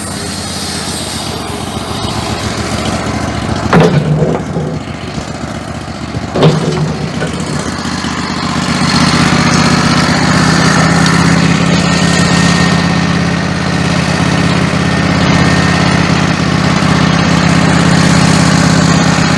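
Wood-Mizer LT15 Go portable band sawmill running with a steady engine drone. Two sharp knocks come a few seconds in, and the machine grows louder and steadier from about halfway through.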